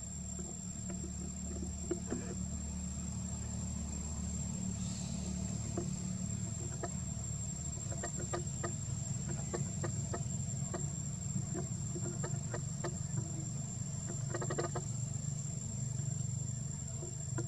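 Outdoor ambience: a steady low rumble with a constant thin high-pitched whine over it, and scattered short soft clicks and ticks, thickest in the second half.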